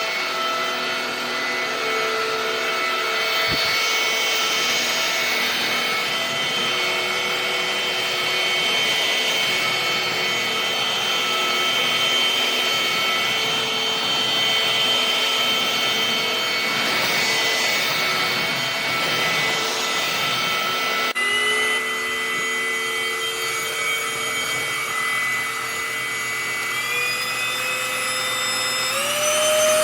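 Tdyon cordless stick vacuum running with a steady motor whine over a rushing air hiss. About two-thirds in, the sound changes abruptly. Near the end, the whine climbs higher in steps.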